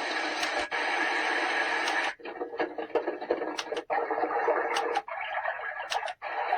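A white noise sound machine's speaker cycling through its soothing sounds. Each sound is a different hissing noise texture, some with scattered clicks, and it changes about every second or so with a brief dropout at each switch.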